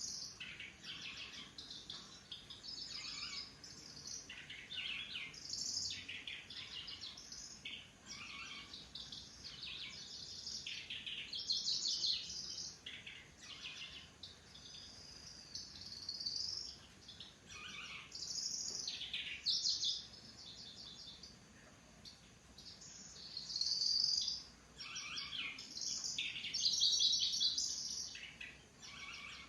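Kecici belalang (cici lurik) singing: short, rapid, buzzy trilled phrases, high-pitched and insect-like, repeated again and again with brief pauses between them.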